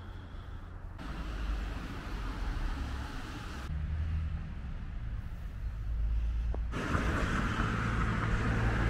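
Outdoor street ambience: a low rumble of distant road traffic with a steady hiss. The sound changes abruptly a few times, and the hiss grows louder over the last two seconds.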